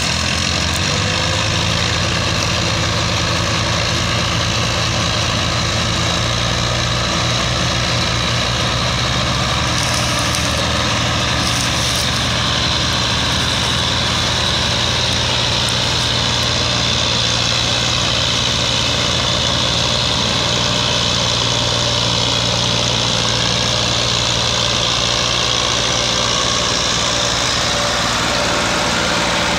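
Diesel engines of a Belarus MTZ tractor and a second tractor running steadily together, hitched up to haul a trolley heavily loaded with sugarcane.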